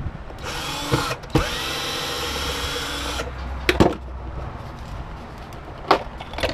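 Power drill backing screws out of a humidifier's plastic base, its motor whining steadily and stopping about three seconds in. A few sharp clicks and knocks come before and after.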